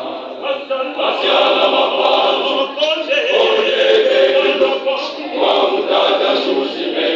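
Church choir singing together, many voices holding sustained sung notes.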